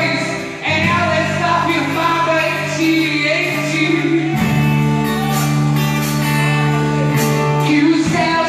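Live worship band playing with voices singing, over sustained bass and keyboard chords that change every few seconds.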